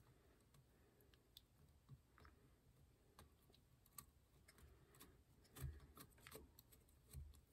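Near silence broken by faint scattered clicks and a few soft knocks, most of them in the second half: small parts being handled while the sewing machine motor's carbon brushes are checked.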